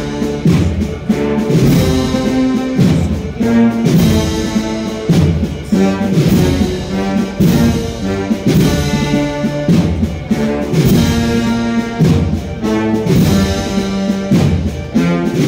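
Wind band playing a Holy Week processional march (marcha procesional), with brass carrying the melody over a steady drum beat.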